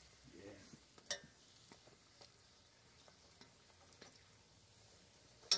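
Flour tortilla frying in hot oil in a stainless steel pan: a faint sizzle with scattered small crackles. A sharp click about a second in and a louder one near the end.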